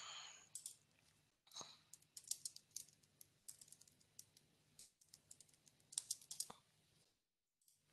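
Computer keyboard being typed on: a run of faint, irregular key clicks that stops about a second before the end.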